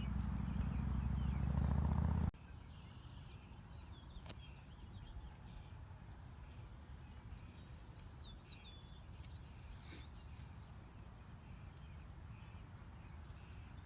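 A heavy low rumble that cuts off abruptly about two seconds in, then quiet outdoor background with scattered bird chirps and short whistled calls.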